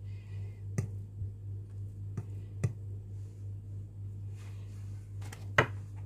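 Spoon clinking and scraping against a glass bowl as thick batter is spread up its sides: a few sharp clinks spread through, over a steady low hum.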